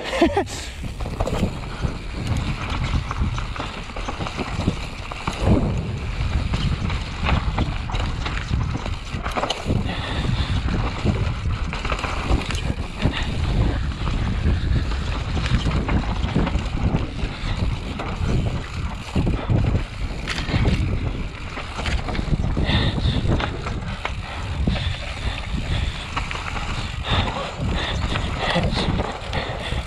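Wind on the microphone with a steady low rumble and many scattered knocks and rattles, as from a bicycle being ridden fast over rough ground.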